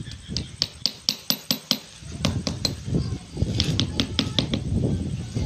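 Small hammer lightly tapping a metal piece set into a sand casting mould: a quick run of sharp metallic taps, about five a second, then a short group of three, then another quick run.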